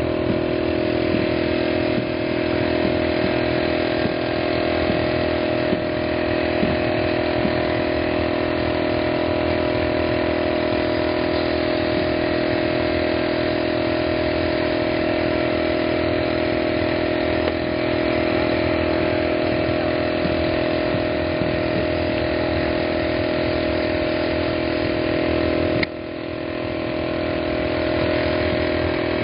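Steady mechanical drone of an engine running at a constant speed, dipping briefly near the end.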